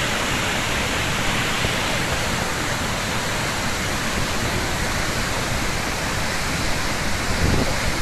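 Steady rush of the Ouzoud waterfalls: water plunging into the gorge, a constant hiss-like roar with no breaks.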